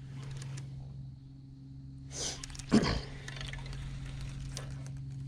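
A steady low hum made of a few even tones, with a short loud noisy burst about two to three seconds in.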